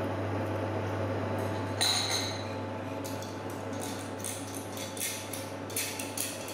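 Chopsticks clicking and clinking against a ceramic plate and a wire mesh rack, one sharper knock about two seconds in, then a quick string of light clinks, over a steady low hum.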